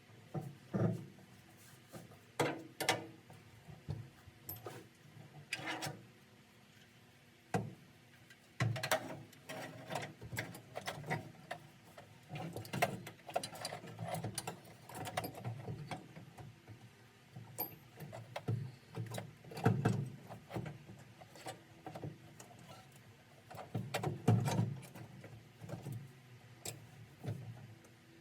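Irregular metal clicks, knocks and clunks of hand-tool work while a truck's clutch and brake pedal assembly is fitted into place under the dash.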